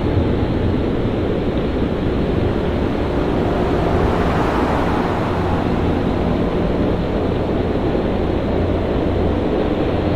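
Storm at sea: wind and surf as a steady rush of noise with heavy low rumble, swelling slightly about four seconds in.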